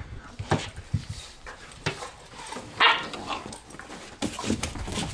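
Two German shorthaired pointers, an adult and a puppy, play-fighting on a cushioned dog bed: scuffling and rustling of bedding throughout, with a short bark about three seconds in.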